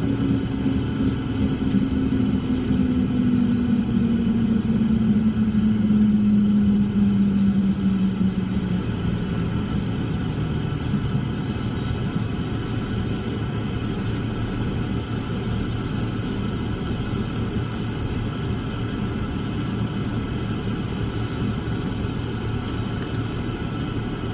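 Cessna 340's twin piston engines and propellers heard from inside the cockpit during the landing rollout: the engine drone falls in pitch over the first eight or nine seconds, then settles into a steady low idle as the plane turns off the runway.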